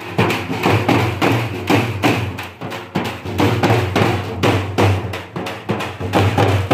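Street procession drums beaten in a fast, driving rhythm, about four strokes a second, with a deep low drum note running underneath.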